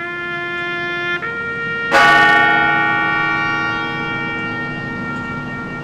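A church bell struck once about two seconds in, ringing on with many overtones and slowly dying away, over a steady held tone that shifts pitch shortly before the strike.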